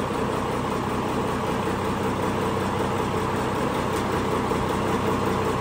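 Freshly rebuilt Mitsubishi Fuso 6D14 inline-six diesel idling steadily just after its first start, left running to build oil pressure.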